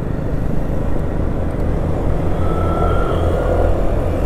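Motorcycle on the move: a steady low rumble of engine and wind noise on the rider's microphone, with a faint thin whine about halfway through.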